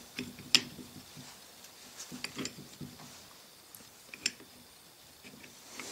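Light metallic clicks and clinks of a 1950s Eaton limited-slip differential being assembled by hand: the steel cross pin and gears are knocked against the cast case as they are fitted. There is a sharper click about half a second in and another about four seconds in.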